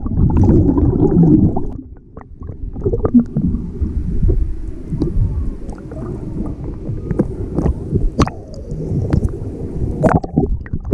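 Underwater sound heard through a submerged camera: a muffled rumble of moving water with gurgling bubbles and scattered sharp clicks.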